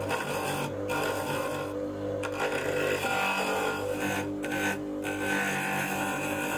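Bench grinder motor humming while an HSS chisel scrapes the face of the spinning laminated wooden wheel to true it. The scraping hiss breaks off for a moment several times.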